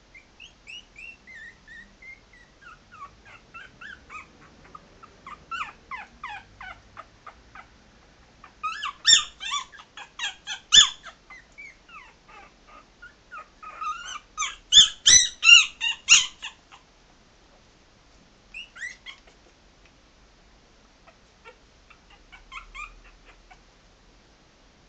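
Young Maltese puppies whimpering and squeaking in a rapid string of short, high-pitched cries. The cries grow into two loud bursts of yelping near the middle, then thin out to a few scattered squeaks near the end.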